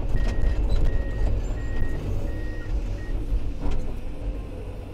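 Excavator's travel alarm beeping as the machine tracks backward, a short high beep about every three-quarters of a second that stops about three seconds in. Under it the diesel engine runs steadily, heard from inside the cab.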